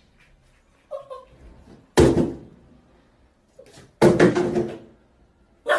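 Hollow thuds and bangs against the side of a bathtub as a small puppy jumps up and paws at it: one about two seconds in, a quick cluster about four seconds in, and another near the end. A brief high whine comes about a second in.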